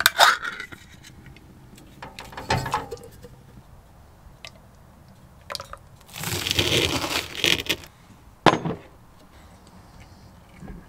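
Kitchen handling sounds while lunch is made: a few sharp clicks and knocks, with a longer scraping, rustling stretch about six seconds in.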